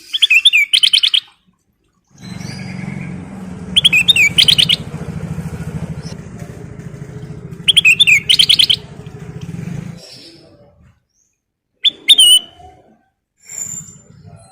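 Kutilang emas bulbul singing short bursts of bright, warbling phrases, four times with pauses between. A low engine drone runs beneath the song from about two seconds in and stops about ten seconds in.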